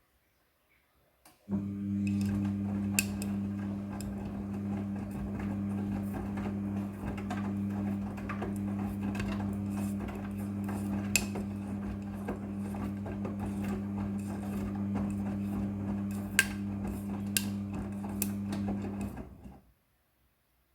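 Midea front-loading washing machine running: a steady low hum with scattered clicks and knocks that starts abruptly about a second and a half in and dies away about a second before the end.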